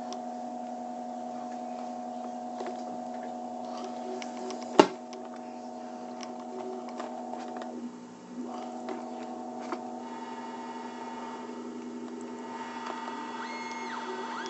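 Homemade Weird Sound Generator synthesizer droning: several steady electronic tones layered together that shift to new pitches twice partway through. A sharp click about five seconds in, and short sweeping pitch glides near the end.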